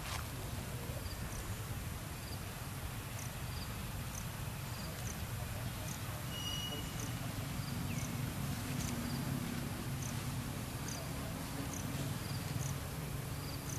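Outdoor ambience: short high chirps repeating about every half second, like a calling insect or bird, over a steady low rumble.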